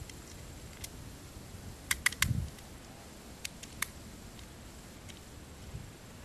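Handling noise from a Steyr Hahn M1912 pistol: a quick cluster of three sharp metallic clicks about two seconds in with a dull thump just after, then two lighter clicks about a second and a half later. No shot is fired.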